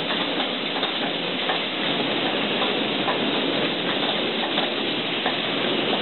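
An automatic spray-painting line for small metal parts running: a steady hiss of air and spray, with light irregular clicking and rattling from the chain conveyor that carries the parts.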